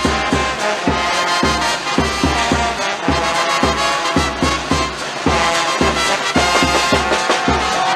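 Brass band music with a steady drum beat, about two beats a second, playing for a dance.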